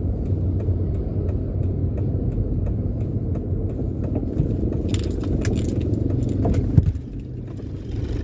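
Inside the cabin of a moving Toyota Wigo: a steady low drone of engine and road noise. From about five seconds in come light clicks and rattles, ending in a single sharp knock near seven seconds. The drone then drops noticeably quieter for the last second.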